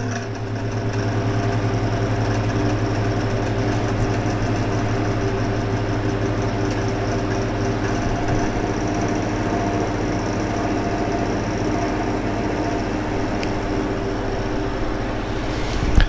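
Cooling fans and pump of a water-cooled PC test bench running, a steady hum with several held tones that stays even throughout.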